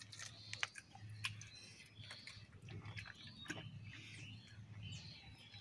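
People eating rice and curry with their hands: soft chewing and scattered small clicks as fingers mix food on plates, over a low steady hum.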